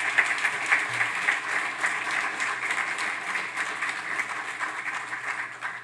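Audience applauding, the clapping tailing off near the end.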